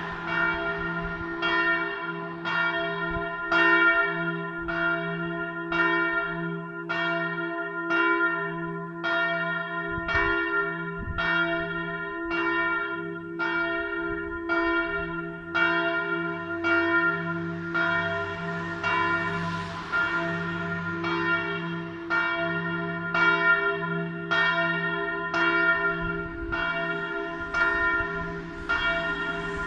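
Bell no. 1 of St. Mariä Himmelfahrt in Ebrach, a single swinging church bell, tolling steadily at a little over one stroke a second. Each stroke rings on into the next under a low, sustained hum.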